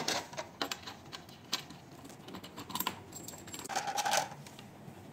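Metal cable plugs clicking and rattling against one another and into their sockets as the laser pad cables are connected to a cavitation machine. There are scattered single clicks, and a short busier rattle about four seconds in.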